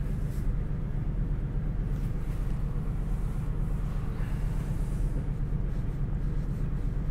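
Steady low background hum, with faint intermittent scratching of a ballpoint pen drawing short hatching lines on brown cardboard.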